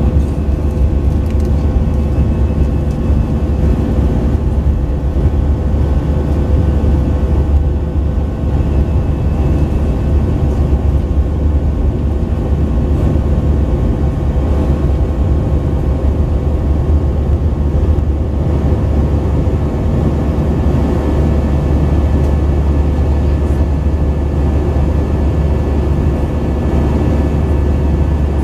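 Airbus A319 jet engines and rushing airflow heard from inside the passenger cabin in flight: a loud, steady low drone with a few faint steady tones above it.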